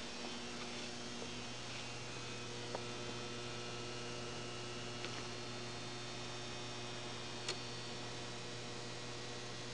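A steady electrical hum with several steady overtones, broken only by a few faint clicks.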